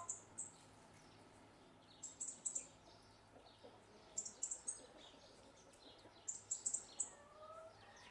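Small birds chirping: short, very high chirps in quick clusters of three to six, coming every couple of seconds.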